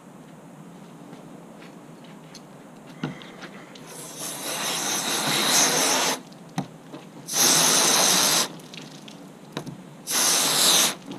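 Garden hose spray nozzle squeezed in three bursts, water spraying onto a salmon fillet and a plastic fillet table. The first burst builds up over about two seconds, and two shorter, louder bursts follow.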